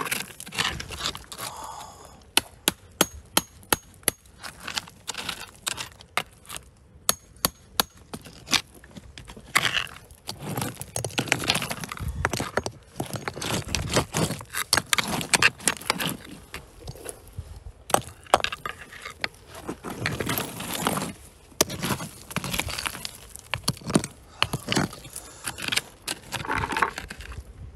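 Rocky ground being dug by hand: a quick run of sharp clinks and knocks of stone on stone, then bursts of scraping and rustling dirt and gravel with more knocks.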